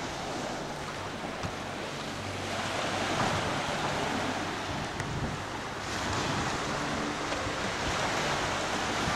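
Small Black Sea waves washing onto a sandy beach, the surf swelling about three seconds in and again about six seconds in, with some wind on the microphone.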